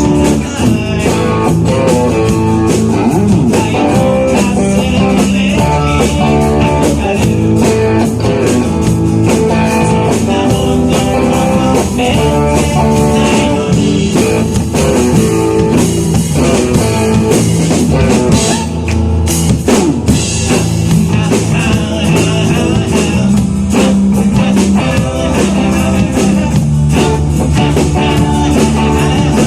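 Live rock band playing, with electric guitar, bass and a drum kit, and some singing.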